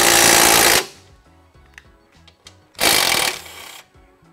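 Cordless Milwaukee impact driver with an 8 mm socket running in two short bursts, driving down a relay-mounting bolt. The first burst stops just under a second in; the second starts about three seconds in and lasts about a second.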